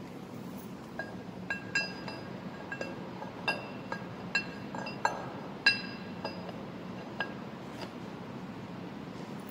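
Steel camshaft timing gear clinking as it is slid onto the camshaft and its teeth worked into mesh with the crankshaft gear: about a dozen light, irregular metallic clinks, each with a brief bell-like ring.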